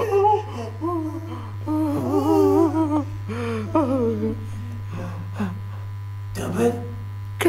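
A person humming a wavering tune for about four seconds, then a couple of short breathy sounds, over a steady low electrical hum.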